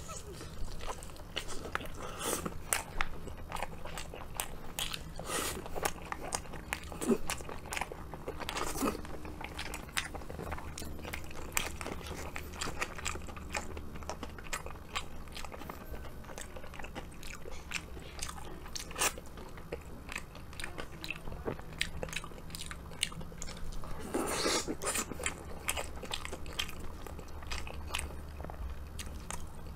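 Close-miked eating sounds: crunchy bites and chewing of crispy karaage fried chicken, later mouthfuls of rice and beef from a curry bento. Many short crisp clicks throughout, busiest a little before the end.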